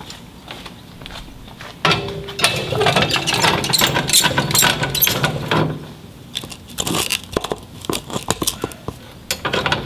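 RV scissor stabilizer jack being wound down, its screw and arms clicking and scraping as it lowers and the attached brace tube slides out. It is louder and busier for a few seconds about two seconds in, then goes on as lighter clicking.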